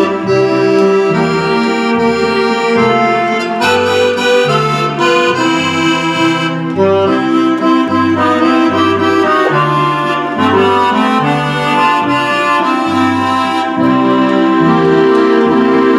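Roland FR-4X digital accordion played continuously: a tune with sustained chords and a steady, rhythmic bass line. The accordion voice is layered over orchestral strings that stay on underneath.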